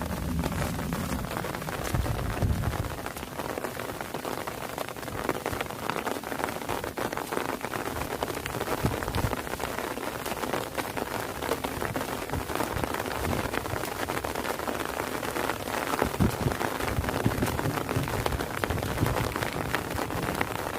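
Steady rain falling, a dense patter of individual drops ticking over a continuous hiss. A low rumble shows near the start and again about three quarters of the way through.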